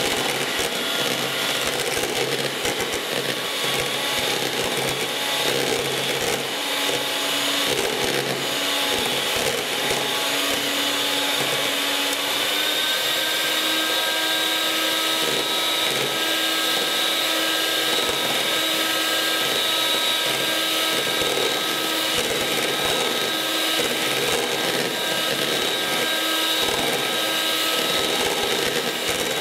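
1980s Gorenje MGA M202 electric hand mixer running steadily, its twin beaters whipping cream in a plastic bowl, with a constant motor whine and the churning, slapping sound of the beaters. About halfway through, the motor's whine steps up slightly and settles into a steadier tone.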